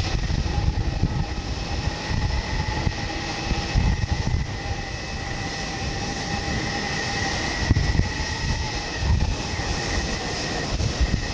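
Jet aircraft engine noise on an airport apron: a steady high whine over an uneven, gusty low rumble.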